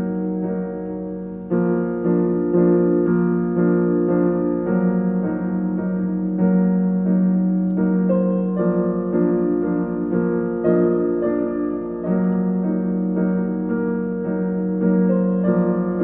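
Solo piano playing a melody over held chords. The chords change every few seconds.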